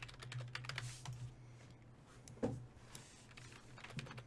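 Computer keyboard typing: a quick run of key clicks in the first second or so, then scattered clicks and a soft knock about two and a half seconds in, over a low steady hum.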